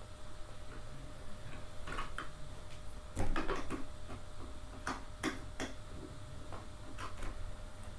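Irregular small clicks and taps of metal chair hardware, a screw being turned in by hand and not yet tight. The sharpest taps come about three to six seconds in.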